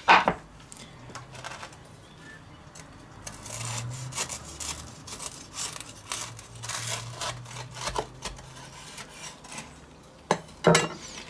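A large kitchen knife cutting through a toasted grilled sandwich on a wooden board: a run of short, irregular crackles and scrapes as the blade works through the crust. Two sharp knocks come a little after the tenth second.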